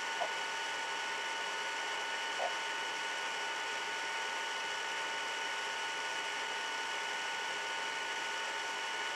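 Steady recording hiss with a faint, constant high whine, broken by two faint, very short plinks, one just after the start and one about two and a half seconds in.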